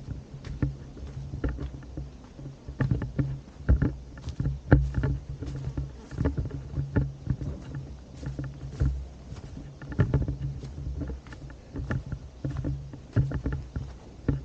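Footsteps of someone walking on a path, with irregular knocks about once or twice a second over a steady low rumble from handling noise or wind on the microphone.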